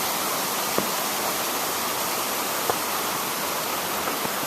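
Waterfall rushing in a steady, unbroken roar of falling water, with two brief ticks about a second in and near the middle.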